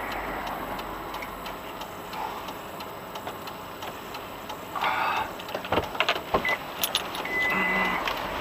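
Steady road and engine noise inside a car, heard through a dashcam, with a faint regular ticking. About five seconds in there is a short rush of noise, followed by a few sharp knocks.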